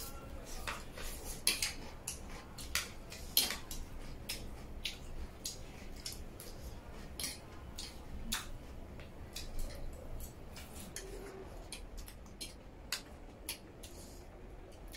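Forks and spoons clinking and scraping against metal serving trays while eating: irregular light clicks and scrapes.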